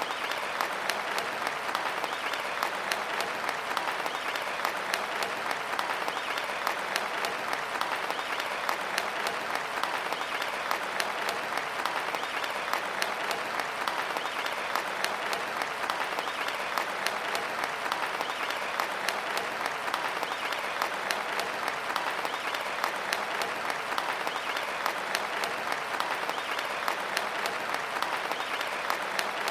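Large crowd applauding steadily: many hands clapping at once in a dense, even patter.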